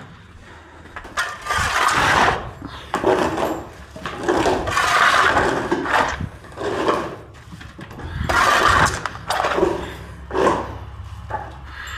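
Shovelling wet manure and bedding off a barn floor: a run of scraping scoops, each up to about a second long, seven or eight in a row.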